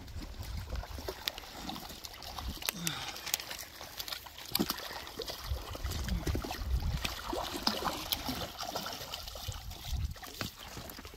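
Water trickling and splashing, with scattered sharp clicks and knocks and a low rumble underneath.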